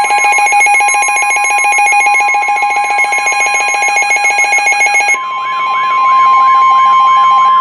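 NOAA Weather Radio's 1050 Hz warning alarm tone: one loud steady tone sounded ahead of a severe thunderstorm warning. For the first five seconds or so, a second, rapidly pulsing buzzing alarm sounds along with it and then stops suddenly.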